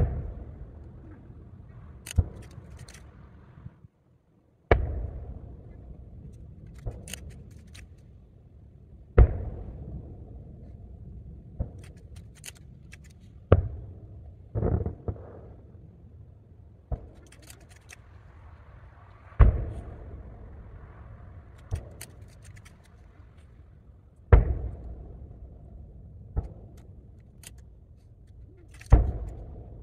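Distant booms of large aerial firework shells (12-inch shakudama) bursting, about a dozen sharp reports spaced a few seconds apart, each followed by a rolling echo. The sound briefly cuts out about four seconds in.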